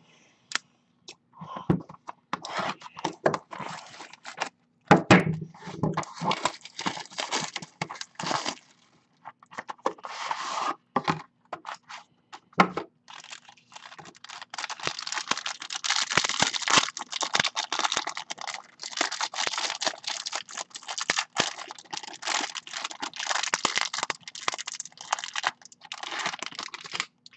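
Packaging of a sealed trading-card box being opened: plastic wrapping torn and crinkled, with scrapes and cracks of the cardboard. Sparse at first, then near-continuous rustling and crinkling for the last half.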